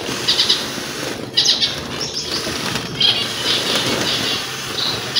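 Small aviary finches chirping in short repeated bursts and fluttering their wings, over the steady hiss of water misting from a hand-pumped pressure sprayer.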